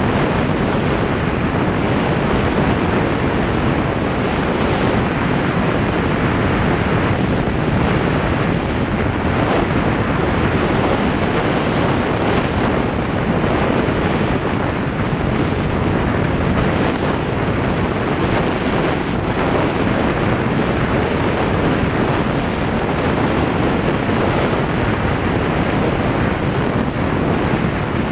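Steady wind rush buffeting the microphone of a camera mounted on a snowmobile riding fast, with the snowmobile's engine running underneath.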